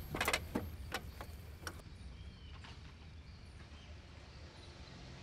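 A few light clicks and knocks of objects being handled, clustered in the first two seconds, then only a low steady hum of room tone.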